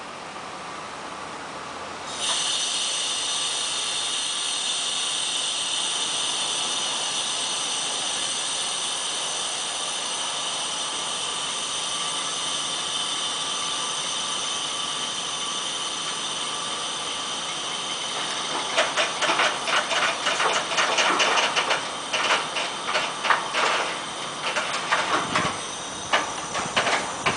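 Loaded CSX rock train's brakes in an emergency application: a steady high-pitched hiss with whining overtones starts about two seconds in and holds as the cars drag past at slowing speed. From about eighteen seconds in, rapid irregular clanking and rattling from the cars and couplers joins the hiss.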